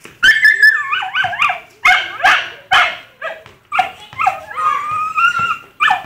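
A small dog yipping and barking over and over, with a drawn-out whine a little past the middle.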